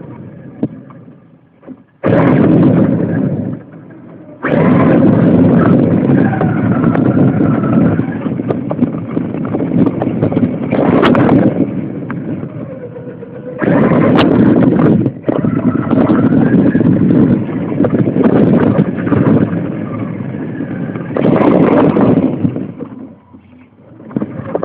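Radio-controlled car driving, heard through a phone microphone mounted on the car: loud, rough drivetrain and chassis noise with knocks and rattles. It runs in several bursts, with short quieter stops in between.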